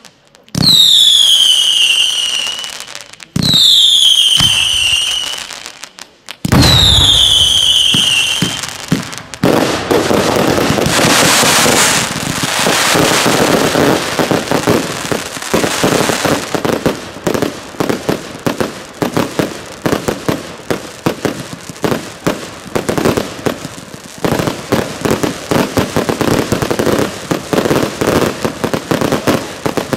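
Daytime fireworks. First come three whistling shots, each one starting with a thump and falling in pitch for about two seconds. From about nine seconds in, a dense, rapid barrage of crackling and banging salute reports follows and runs on.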